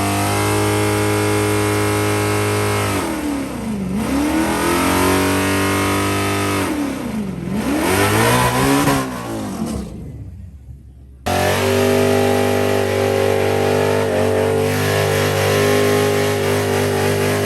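Drag race car engine held at steady high revs, with the revs dropping and climbing back up twice. About 11 seconds in, the sound cuts abruptly to an engine again held at steady high revs, as if waiting on the line to launch.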